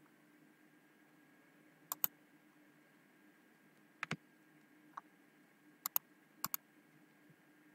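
Computer mouse button clicks: a few sharp clicks, mostly in quick pairs, about two, four, five, six and six and a half seconds in, over a faint steady hum.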